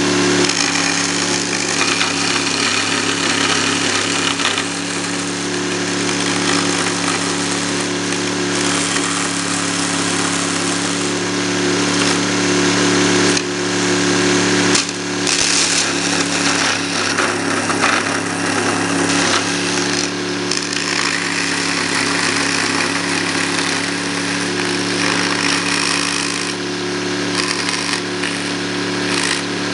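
Chainsaw mounted in a table saw bed and driven by an electric motor, running steadily while cutting dovetails in wood: a steady hum under dense, harsh cutting noise, with a couple of brief dips about halfway through.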